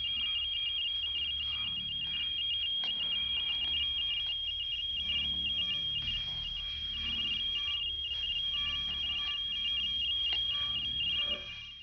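Suspense sound cue: a high-pitched tone pulsing rapidly and evenly over a low rumbling drone. It drops away shortly before the end.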